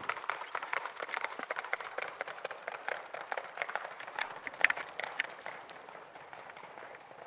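Hoofbeats of two racking horses on a road: a fast, even patter of hoof strikes that fades as the horses move away.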